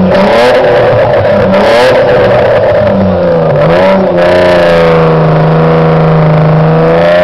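BMW car's engine revving hard during a burnout, the revs rising and dipping several times and then held high and steady for the last few seconds as the rear wheels spin and smoke.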